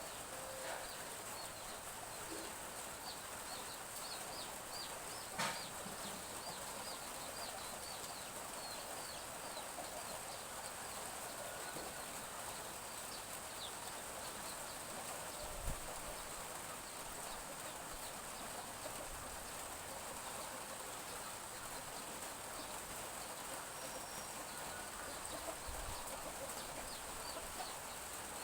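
Chicks peeping: many short, high cheeps repeating over a steady hiss of light drizzle, with an occasional hen's cluck. About five seconds in there is one sharp click.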